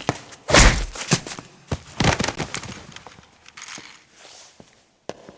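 Film sound-effects mix of Foley and hard effects: a heavy low thump of a hit about half a second in, then a run of sharp knocks, clicks and footsteps.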